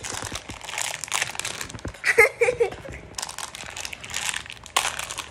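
Plastic candy wrapper crinkling as a small packet of sour gummy worms is pulled and bitten open, with a sharp crackle near the end. A short vocal sound is heard about two seconds in.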